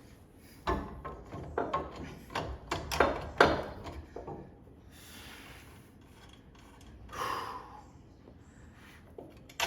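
Hands working metal hardware on a coilover's upper mounting bolts: a run of clinks, knocks and scraping for about the first four seconds, then quieter rubbing.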